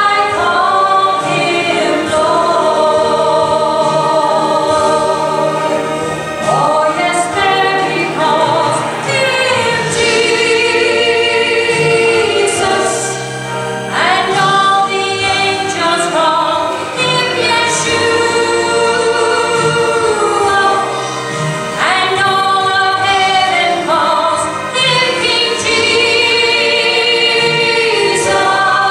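A woman singing a slow gospel song with musical accompaniment, holding long notes with vibrato.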